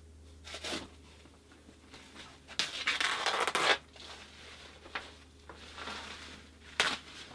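Protective plastic film being peeled off a new iMac and crumpled: a short rustle, then a louder crinkling rustle lasting about a second, and a sharp crackle near the end.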